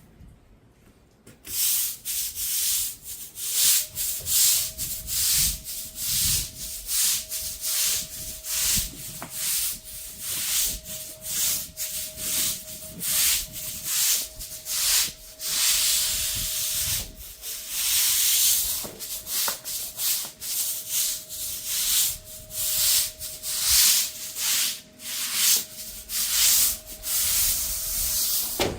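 Pressure-washer jet spraying a concrete driveway, its hiss swelling and fading about once or twice a second as the spray is swept back and forth. A steady whine from the machine comes in a few seconds in and holds.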